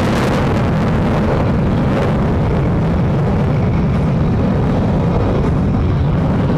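Loud, steady rumble of an F-35B's Pratt & Whitney F135 turbofan jet engine in flight, its higher hiss fading over the first couple of seconds as the jet moves away.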